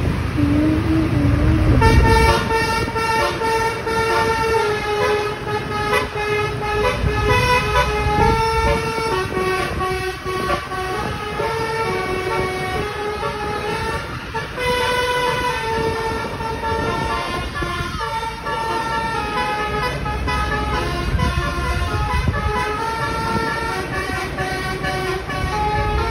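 Basuri musical multi-tone bus horn on the Tri Putra Jaya tour bus playing a melody of stepped notes. It starts about two seconds in and keeps going, over a motorbike's engine and road noise.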